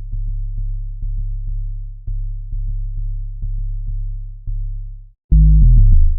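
Synthesized sub-bass line playing alone: deep held notes re-struck every half second or so, with a faint tick at each attack. Near the end a much louder, booming bass note slides down in pitch.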